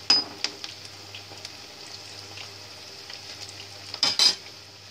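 Battered cauliflower florets deep-frying in hot oil in an iron kadai: a steady sizzle with scattered crackles. A steel skimmer clinks against the pan right at the start, and a louder clattering burst comes about four seconds in.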